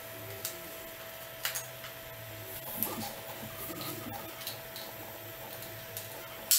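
Scattered light clicks and taps of metal kitchenware over a steady faint hum. Near the end comes one sharp clack as a metal spatula sets cookies on a wire cooling rack.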